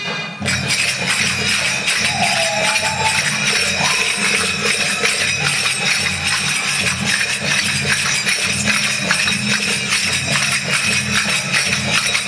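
Fast, percussion-heavy dance music with a bright, jingling rhythm. The percussion comes in about half a second in, taking over from a held melodic passage.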